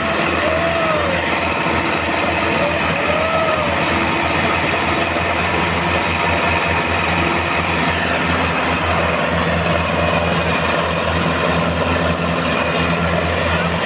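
Tractor diesel engine running steadily under load, hauling a loaded straw trailer through a muddy harvested field. A few short rising-and-falling tones sound over it in the first few seconds.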